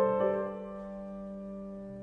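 Soft background piano music: a few notes played right at the start, then held and slowly fading.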